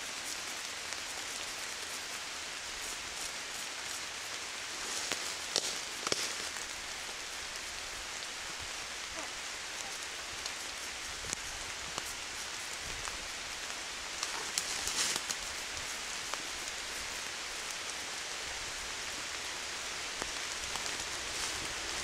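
Steady rain falling in woodland, an even hiss. About five seconds in, and again near fifteen seconds, come a few brief crackles and snaps as dry ivy air roots are cut from a tree trunk with a knife.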